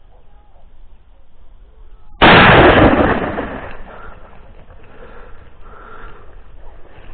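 A single shotgun shot about two seconds in, sudden and very loud, its report ringing and echoing away over about a second and a half.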